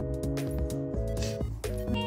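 Background music: held chords that change every second or so over a light, steady percussive beat.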